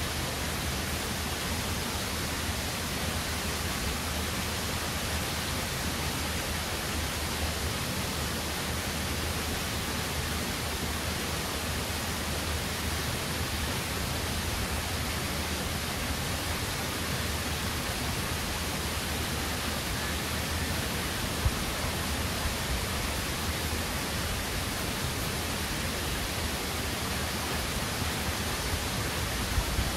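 Steady, even rush of a rocky waterfall cascade heard from high above, with no rise or fall. There is a brief faint click about two-thirds through and another near the end.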